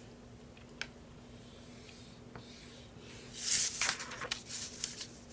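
Paper being handled and folded by hand: a light tap about a second in, then a second and a half of rubbing and rustling as the sheets are creased.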